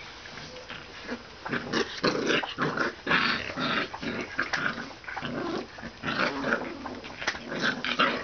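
Pit bull–shar pei puppies growling in bursts as they play-fight, starting about a second and a half in and coming again and again.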